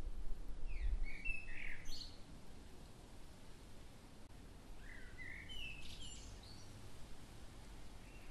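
A songbird singing two short phrases of chirping notes, about four seconds apart, with a low rumble in the first second.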